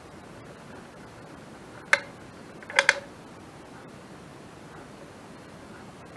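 Caulking gun clicking as its trigger is squeezed to push out silicone sealant: one sharp click about two seconds in, then a quick double click just under a second later, over a steady low hiss.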